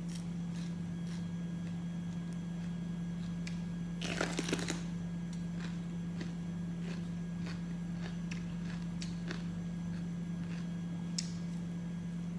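Close-up eating sounds: small wet clicks and smacks of chewing, with a short crisp crunch about four seconds in, a bite of raw green bell pepper. A steady low hum runs underneath.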